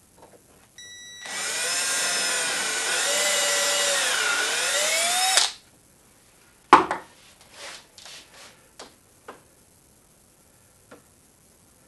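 Cordless drill running for about four and a half seconds as it bores into the wooden frame, its motor whine sagging in pitch under load partway through and then picking up again. A single sharp knock follows, then a few light clicks.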